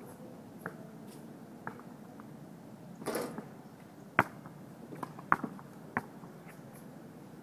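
A basketball swishes through the hoop's net about three seconds in, then bounces three times on a plastic modular tile court, each bounce a sharp slap, the last as it is dribbled.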